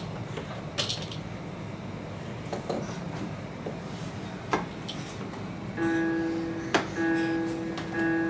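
Toddler's musical play-gym piano toy: a few sharp plastic taps and clicks as its buttons are hit, then about six seconds in the toy starts playing an electronic tune of steady held notes.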